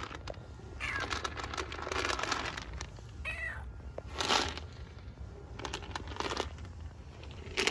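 Young tabby cat meowing several times, short separate calls a second or so apart.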